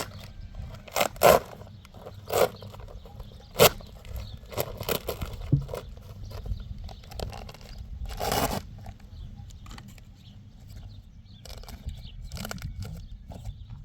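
Irregular knocks and crunching scrapes over a low steady rumble, with one longer scraping noise about eight seconds in.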